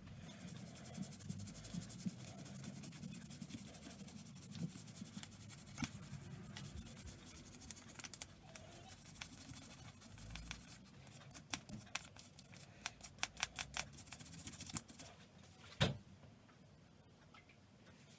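A toothbrush scrubbing the grimy body of a classic Mini carburettor clean, its bristles scratching on the metal in quick, repeated strokes that come in spells. A single sharp knock comes near the end.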